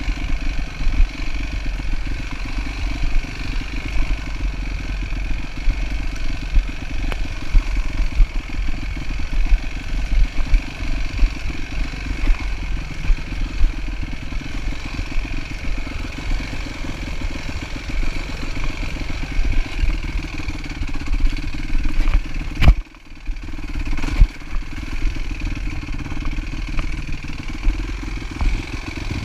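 Dirt bike engine running as the bike is ridden along a bumpy trail. About three quarters of the way through there is one sharp knock, and the engine sound briefly drops off before picking up again.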